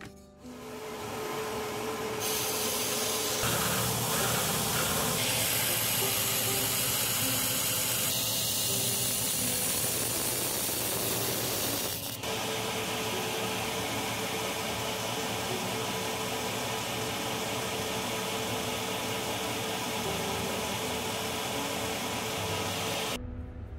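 Belt grinder running with a steel kitchen-knife blade pressed against the abrasive belt: a dense grinding hiss over a steady motor hum. It starts about half a second in, breaks off briefly about halfway, and stops abruptly just before the end.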